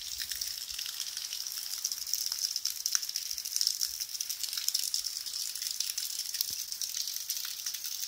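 Running water, a steady gushing hiss with many faint little ticks in it.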